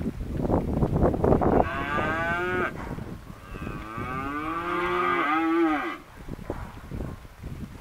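A mob of cattle mooing as they move: hooves trampling on dry dirt, a short falling moo about one and a half seconds in, then a longer moo from about three to six seconds, and trampling again near the end.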